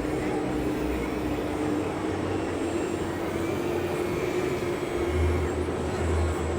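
RC model Tatra 815 6x6 truck running, a steady motor whine that rises slightly in pitch partway through.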